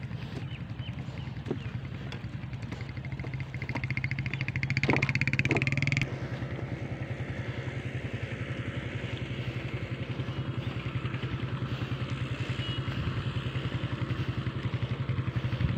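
Motorcycle engine running steadily with a fast, even pulse. It grows louder and higher for a couple of seconds about four seconds in, then drops back sharply.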